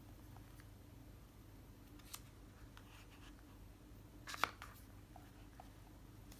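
Small handling clicks from unboxing: one light click about two seconds in and a sharper cluster of clicks, like plastic snapping or tapping, about four and a half seconds in, over a low steady hum.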